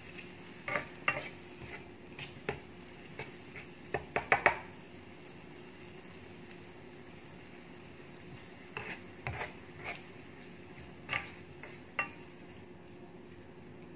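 A spatula scraping and knocking against a non-stick wok as a squid stir-fry is turned, over a soft steady sizzle. A quick run of knocks comes about four seconds in, then a few seconds with only the sizzle before the stirring picks up again.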